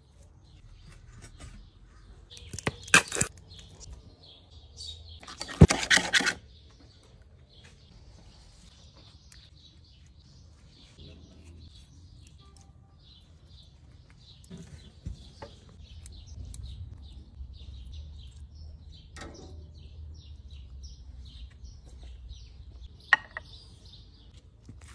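Small birds chirping repeatedly in the background, broken by two loud knocks or clatters about three and six seconds in and a sharp click near the end.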